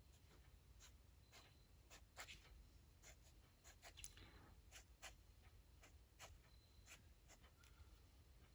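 Faint scratching and tapping of a pen drawing on paper: short, irregular strokes, about one or two a second.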